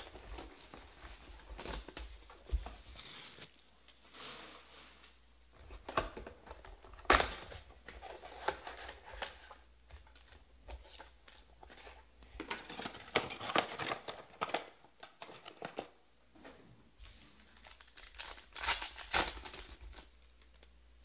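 Panini Prizm football card hobby box being opened and its foil packs torn open: crinkling and tearing of the wrappers, with louder rips about a third of the way in and again near the end.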